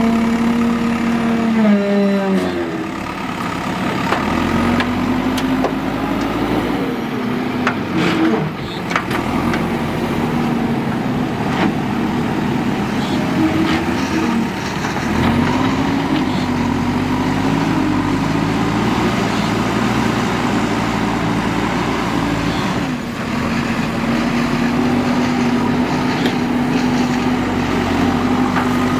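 JCB 3DX backhoe loader's diesel engine running, its pitch falling and rising repeatedly as it works under load, with a few knocks about eight seconds in.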